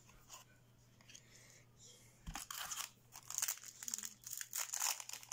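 Foil wrapper of a Yu-Gi-Oh booster pack crinkling and tearing as it is opened by hand, starting about two seconds in and growing louder.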